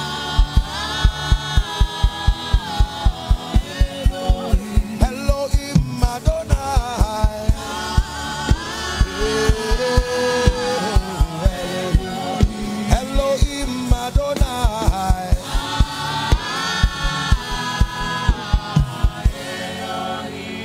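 Gospel music: a choir singing over a steady, fast beat that stops near the end.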